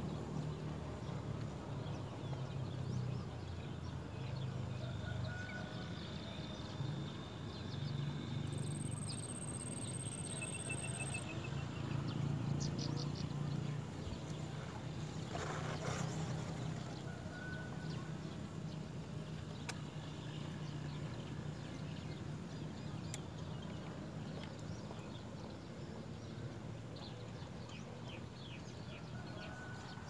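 Outdoor ambience: a steady low hum with faint, scattered bird chirps and short calls.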